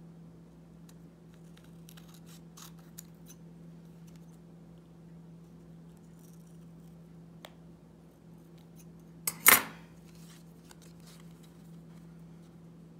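Small paper and card kit pieces being handled, with faint rustles and light taps over a steady low hum. About nine and a half seconds in comes a quick double snip of scissors through paper, the loudest sound.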